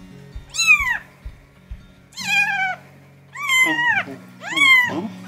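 A 13-day-old Ragdoll–Russian Blue kitten mewing: four high-pitched cries, each sliding down in pitch.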